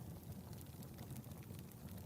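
Wood fire burning in a fireplace: a steady low rumble of flames with a few faint crackles.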